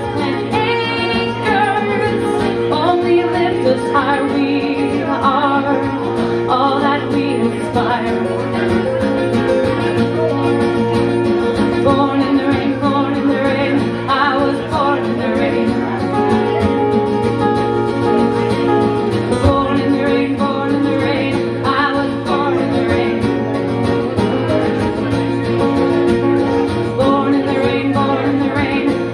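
A woman singing a song to two strummed guitars, one of them acoustic, played live.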